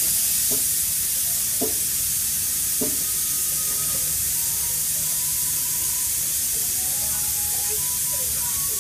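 A loud, steady, static-like hiss that cuts in suddenly, with a few faint taps in the first three seconds.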